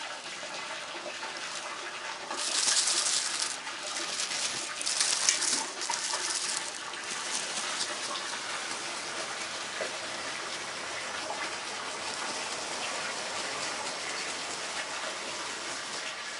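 Steady rush of running water. Three short, louder rustling hisses stand out over it between about two and seven seconds in.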